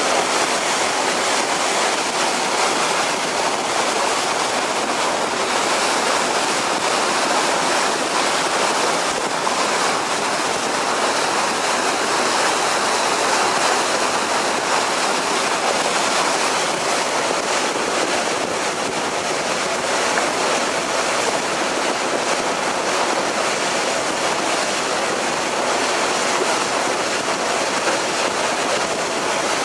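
Steady rush of water along the hull of a passenger ferry under way, with no break or change.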